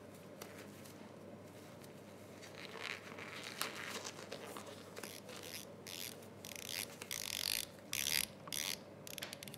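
Irregular rustling, crinkling and scraping of gloved hands on nitrile gloves and plastic lab equipment, starting about three seconds in and loudest near the end, over a low steady hum.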